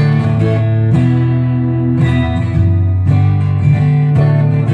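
Acoustic guitar strummed, a new chord struck about once a second and left ringing.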